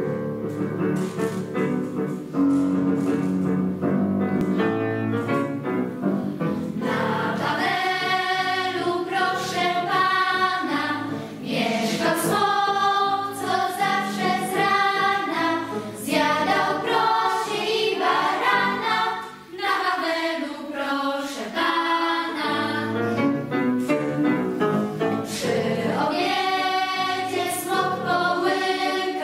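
A piano plays an introduction, and about seven seconds in a children's choir begins singing over the piano accompaniment.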